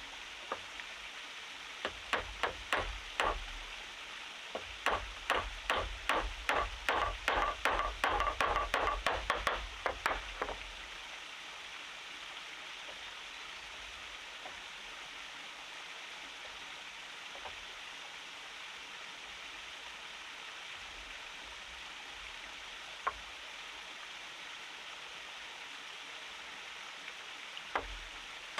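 A run of sharp knocks from wood being struck with a tool, at about three blows a second for several seconds after a few scattered ones. They stop, leaving a steady rushing hiss like a stream, with a single knock later and a few more knocks near the end.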